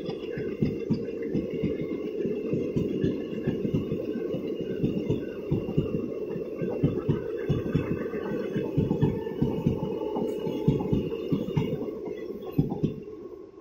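Passenger coaches rolling past, their wheels on the rails making a fast, uneven clatter of knocks over a low rumble. The clatter fades near the end as the last coach goes by.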